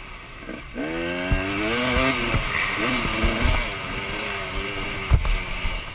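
Dirt bike engine revving hard, its pitch climbing about a second in and then rising and falling with the throttle. There is a sharp thud near the end.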